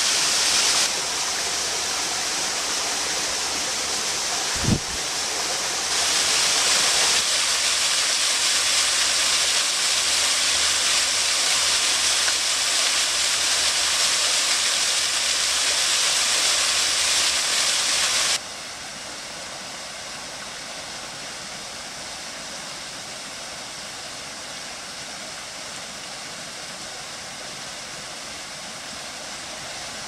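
Waterfall cascading over boulders into a rocky pool: a steady rush of falling water. It steps louder about six seconds in and drops suddenly to a softer rush about eighteen seconds in, with a single click about five seconds in.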